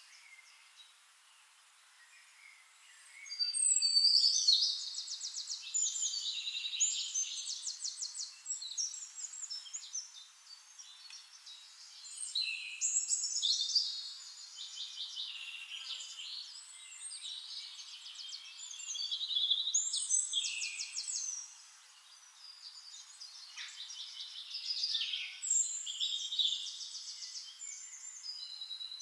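Forest songbirds singing: long, rapid, high trilled songs come in four loud bouts, with quieter chirps between them.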